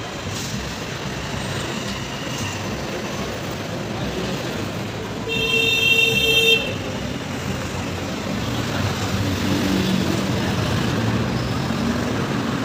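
Steady city street noise, with a vehicle horn honking once for about a second, about five seconds in.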